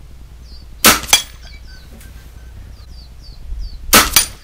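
Two air rifle shots about three seconds apart, each followed about a quarter second later by a second sharp crack.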